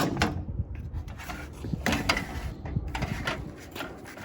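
A sharp knock, then scattered clicks and light knocks: furnace parts and the filter being handled.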